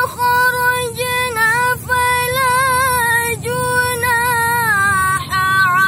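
A young woman's voice reciting the Qur'an in melodic tilawah style, holding long ornamented notes with wavering pitch. She breaks between phrases with short pauses about two, three and a half, and five seconds in.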